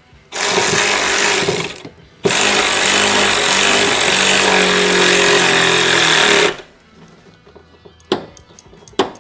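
Impact wrench hammering as it tightens a nut onto a mounting bolt: two bursts, one of about a second and a half and one of about four seconds. A couple of sharp knocks follow near the end.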